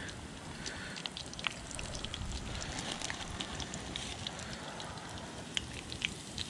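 Breaded perch fillets frying in hot oil in a cast-iron skillet: a steady sizzle with many small scattered crackles and pops.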